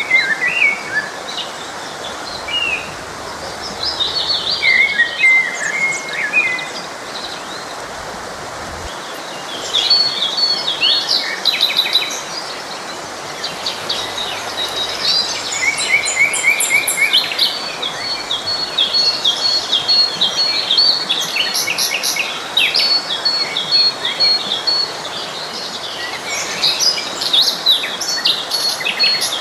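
Several birds singing and chirping over the steady rush of a stream. The calls are sparse at first and grow dense from about ten seconds in, with a thin high note repeated again and again.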